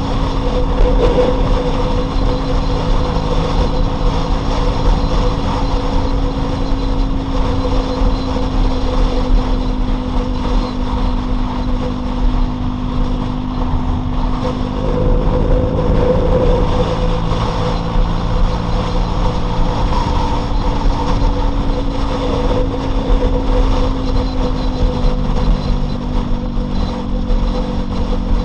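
Loncin LX250-12C motorcycle engine running steadily while riding at a moderate, even pace, its pitch easing slightly lower near the end, over a low rumble.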